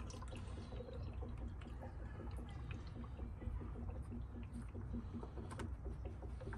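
Faint bubbling and gurgling of air coming up through the water in a coolant-filling funnel as the car's cooling system draws the water down, with scattered small pops. It is trapped air being pushed out of the cooling system.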